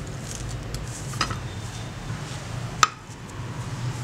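Two short metallic clinks about a second and a half apart, the second louder and ringing briefly, as the rusty steel scissor blade is handled; a steady low hum runs underneath.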